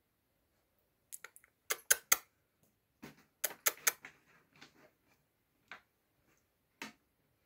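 A run of sharp clicks and taps, coming in quick clusters of two or three between about one and seven seconds in.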